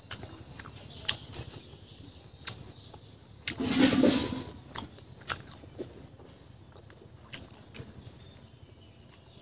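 Close-up eating sounds: scattered wet mouth clicks and chewing on barbecued pork. About four seconds in comes one loud breath blown out through pursed lips, and near the end a bite into a piece of pork.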